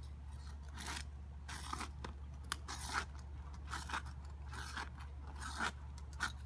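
Putty knife scraping under a roofing shingle in a series of short strokes, about one a second, breaking the shingle's adhesive seal to loosen it.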